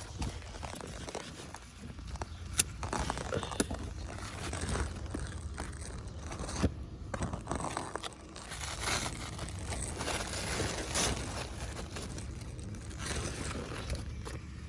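Large squash leaves and vines rustling and tearing as they are handled and pulled, with a few sharp clicks.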